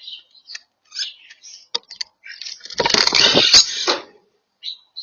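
European starlings giving short chirps and clicks. About three seconds in there is a louder, noisier burst lasting about a second.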